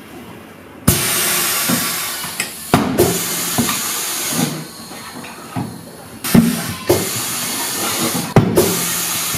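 Pneumatic bead breaker of an ATH M72 tyre changer pressing the bead of a steel-wheel tyre off the rim: about four bursts of compressed-air hiss, each one to two seconds long, with sharp knocks where the strokes start and stop.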